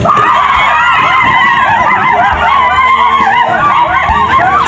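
Many voices whooping and yelping together in a rapid, overlapping chorus of short high calls that rise and fall, the war cries of Papuan traditional dancers.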